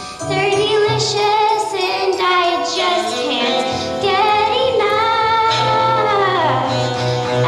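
Children singing a musical-theatre song over an instrumental accompaniment, with a long held note that slides down in pitch near the end.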